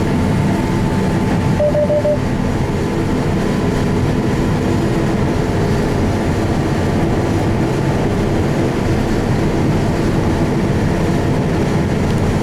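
Combine harvester running steadily while combining beans: a loud, even drone of engine and threshing machinery.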